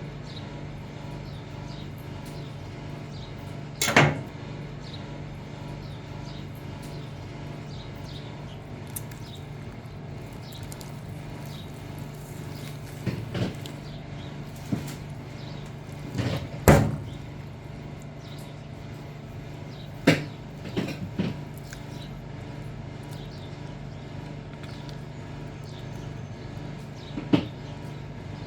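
A steady low hum with about half a dozen scattered sharp knocks and clunks, the loudest one past the middle.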